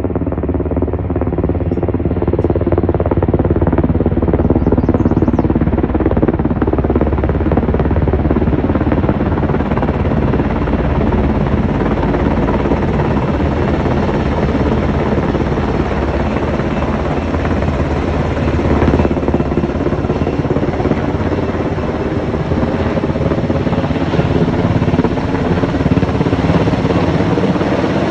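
Firefighting helicopter hovering low overhead: loud, steady rotor and engine noise.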